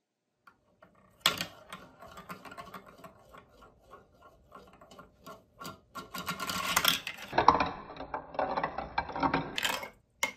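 Plastic marble-run ball dropped into a clear plastic funnel bowl with a sharp click about a second in, then rolling and rattling around the funnel and on through the plastic block-course chutes, getting louder about six seconds in. The rolling stops about ten seconds in, followed by one short click.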